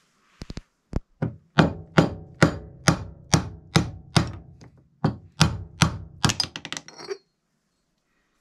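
A mallet striking a machined aluminium drift set in a bicycle hub shell, driving out the old hub-shell bearing: a few light taps, then about a dozen heavy ringing blows at roughly two a second, ending in a quick flurry of lighter hits.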